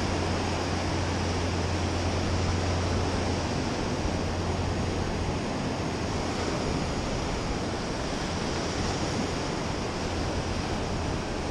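Ocean surf breaking and washing up a sandy beach, a steady rushing wash of waves. A low wind rumble on the microphone fades out about halfway through and returns near the end.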